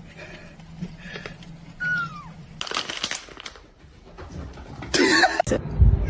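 A cat meowing: a short, falling meow about two seconds in and a louder one about five seconds in, followed by a low rumble near the end.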